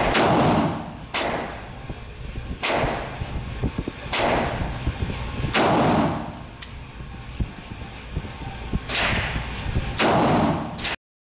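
Ruger GP100 Match Champion revolver firing 10mm rounds: a string of loud shots about one to one and a half seconds apart, with a longer pause before the last two. Each shot echoes off the concrete walls of the indoor range.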